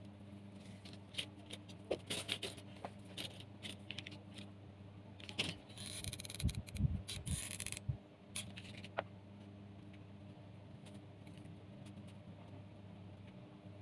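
Thin wooden skewers clicking, tapping and scraping against each other and the cutting mat as they are handled and glued in place, with a longer scraping rustle about six seconds in.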